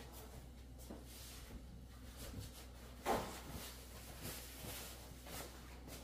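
Quiet kitchen handling noises as cornbread batter is put into a pan and a small cast iron skillet, with one sharp clunk about three seconds in, over a low steady hum.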